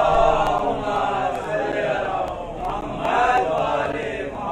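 Male voice chanting a recitation in long, drawn-out melodic lines, louder than the speech around it.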